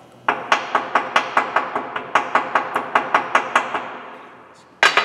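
Ball-peen hammer tapping a small metal pin held in a bench vise, about five light blows a second for some three seconds, then one harder blow near the end: the pin's end is being peened to flare it so it grips and won't spin.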